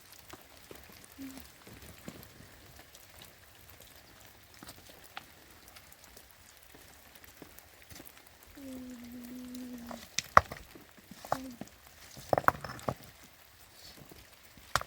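Rain falling and dripping, a faint steady patter with scattered small drips. A little past halfway comes one short, low, held voice-like sound, followed by a few sharp knocks.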